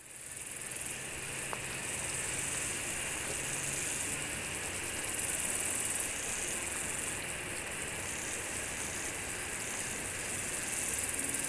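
A steady, high-pitched chorus of insects chirring, fading in at the start.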